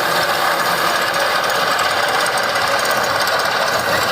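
Tractor with a mounted wheat cutter (reaper) running steadily while cutting standing wheat.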